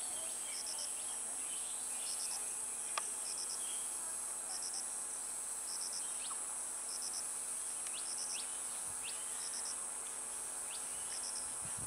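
Insects calling: a steady high-pitched buzz, with a short chirp of three quick pulses repeating about once a second. A single sharp click about three seconds in.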